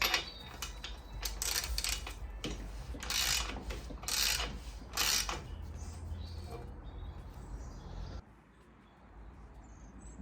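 Mechanical clicking and several short rasping bursts from hand work on bicycle parts. The sound stops about eight seconds in.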